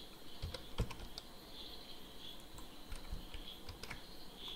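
Computer keyboard keystrokes: a few scattered, irregular clicks, the clearest in the first second, over a faint steady hiss.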